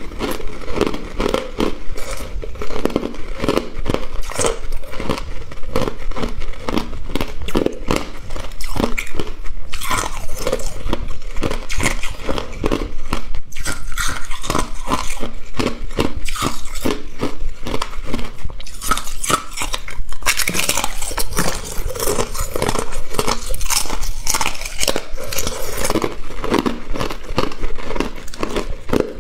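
A person biting and chewing hard clear ice: a dense, unbroken run of crisp cracks and crunches.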